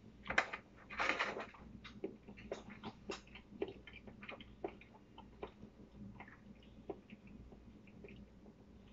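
A person eating: faint chewing and small clicking mouth and spoon sounds, scattered through, with a louder brief noise about a second in.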